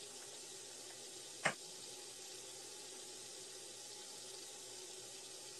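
Faint steady hiss of room tone, with one short click about a second and a half in.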